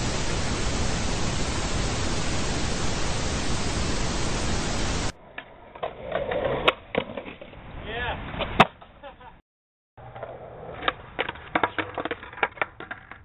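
Loud, even TV-static hiss for about five seconds that cuts off suddenly. Then skateboard sounds on concrete follow: wheels rolling and sharp clacks and snaps of the board. A brief dropout comes before a second run of board clacks.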